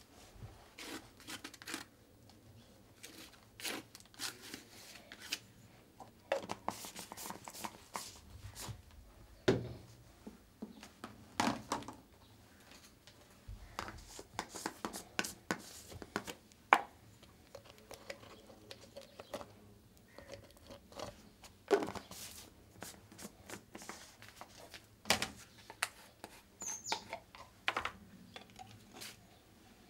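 Irregular taps, knocks and scrapes as paint jars and brushes are picked up, set down and worked on a cluttered painting table, with a few sharper knocks standing out.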